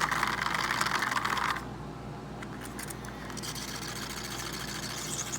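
Mini makeup-brush and beauty blender washing machine running, its small motor spinning the accessory in water with a fast rattling whir. The rattle cuts off abruptly about a second and a half in, and a softer, hissing whir comes back about two seconds later.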